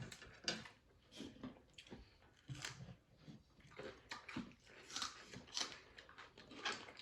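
People eating close to the microphone: chewing and wet mouth sounds with irregular soft crunches, a few a second.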